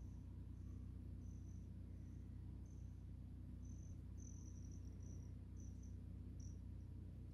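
Crickets chirping in short, high, faint chirps, irregularly about once or twice a second, over a low steady hum.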